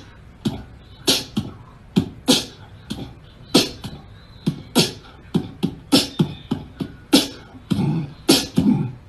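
Background music built on a beatbox-style beat: sharp percussive hits with deep thumps between them, about two to three a second.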